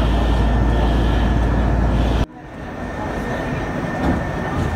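Interior noise of a moving Otokar city bus: a steady heavy low rumble of engine and road. About halfway it cuts off abruptly and gives way to a quieter, lighter ride noise.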